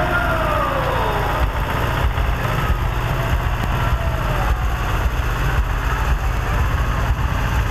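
Farm tractor engine running steadily at low revs as it pulls a parade float at walking pace.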